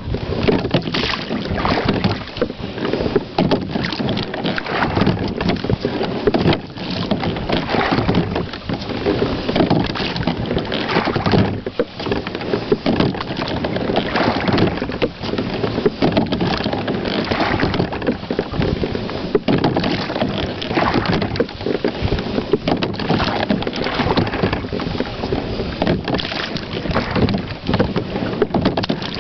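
A rowing boat being slide-seat rowed with carbon-fibre oars: water rushing and splashing along the hull and blades, swelling with each stroke.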